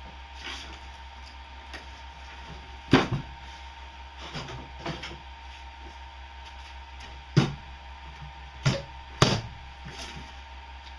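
Sharp wooden knocks and clunks as the plywood side panels of a shipping crate are worked loose: a loud knock about three seconds in, a couple of lighter clunks, then three more loud knocks in the last few seconds, over a steady low hum.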